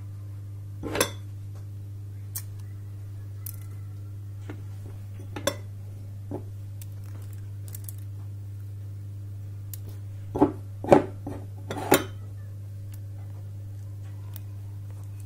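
Fingers sprinkling and pressing cheese and herb topping onto eggplant halves on a foil-lined baking tray: scattered light clicks and crinkles, with a quick cluster of them about ten to twelve seconds in. A steady low hum runs underneath.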